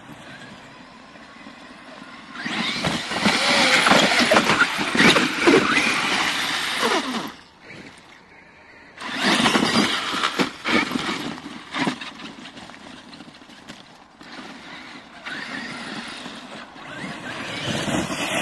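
Brushless electric RC monster truck (Traxxas X-Maxx) driven hard across sand in three runs: its motor whines up and down in pitch with each burst of throttle, over the noise of the tyres churning. The first and longest run starts about two and a half seconds in, and the others follow around nine and fifteen seconds in.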